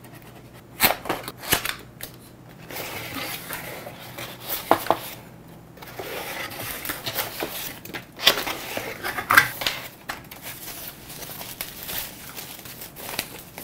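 Product packaging being opened by hand: paper and plastic rustling, with scattered clicks and knocks as the box and its contents are handled.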